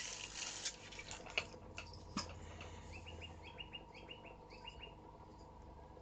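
A bird chirping in the background: a quick run of short high chirps, about four or five a second, for a couple of seconds, after a few light handling clicks and rustles in the first two seconds.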